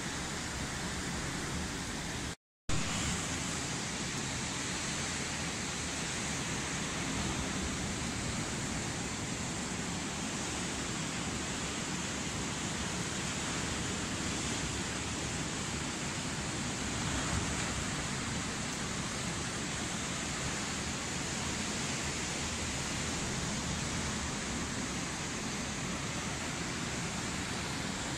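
Steady storm noise of wind and rough surf on a choppy sea, an even rushing hiss with no separate events. The sound drops out completely for a split second about two and a half seconds in.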